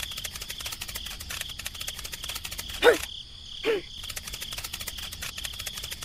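Cricket-like insect chirring: a rapid, steady buzzing trill. About three seconds in it is broken by two short falling squeaks, under a second apart, which are the loudest sounds.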